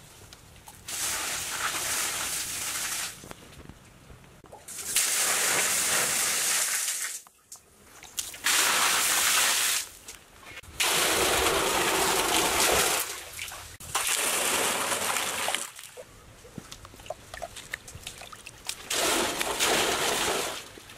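Water poured from clay pots into a round concrete-lined shaft, splashing down in about six separate pours of two to three seconds each with short pauses between.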